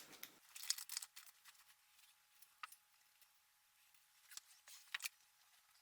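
Faint, scattered clicks and light clinks of small parts being handled during assembly, five or so sharp ticks a second or more apart over near silence.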